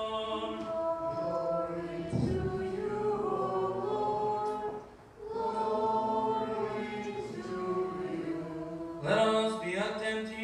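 Unaccompanied Byzantine-rite liturgical chant, sung in long held notes with a brief pause about five seconds in and a louder phrase starting near the end.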